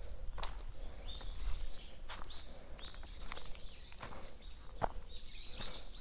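Footsteps of a hiker walking on a dirt forest path covered in dry fallen leaves: irregular crunching steps, roughly one every half second to second.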